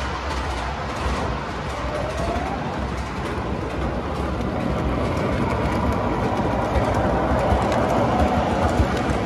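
MTH O gauge model subway trains running on the track: a steady rolling rumble with small clicks that grows louder over the last few seconds as a train passes close, and a faint rising whine about two seconds in.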